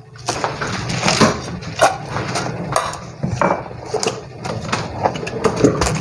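Chef's knife chopping caisim (choy sum) on a plastic cutting board: a run of irregular knocks of the blade through the stalks onto the board. Later the cut greens are gathered by hand into a stainless steel bowl, with light clinks and rustles.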